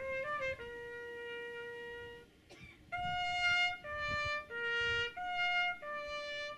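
Solo trumpet playing a slow ceremonial tune, one note at a time. A long held note is followed by a brief pause about two seconds in, then a run of notes that change about every half second.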